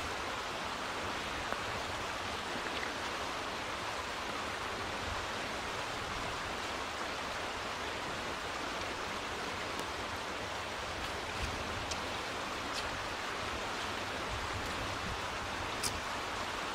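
Mountain river rushing over stones, a steady rush of water. A few faint clicks in the second half, footsteps on the stony bank.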